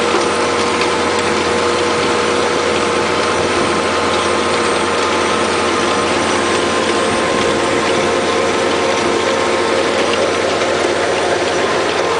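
Massey Ferguson 8480 tractor's six-cylinder diesel running steadily under load while driving a Lemken Solitair 9 power harrow and seed drill through the soil, a constant mechanical whine and clatter of gear-driven machinery over the engine.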